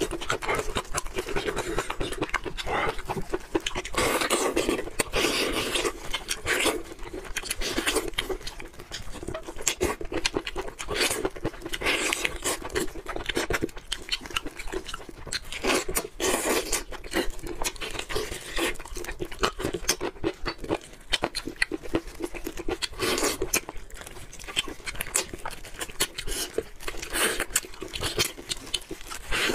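Eating sounds: steamed chicken pulled apart by gloved hands and chewed, with many quick mouth clicks and smacks.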